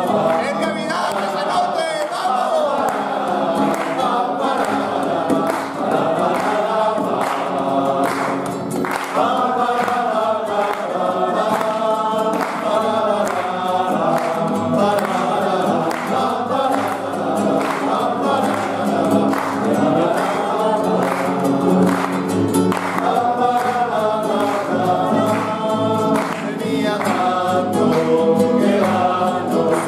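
A group of voices singing a Spanish Christmas carol (villancico) together, accompanied by strummed acoustic guitars keeping a steady rhythm.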